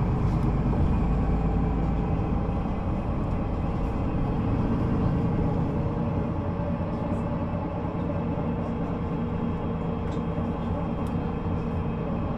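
Solaris Urbino 18 III articulated bus's 265 kW DAF diesel engine running with a steady, even note.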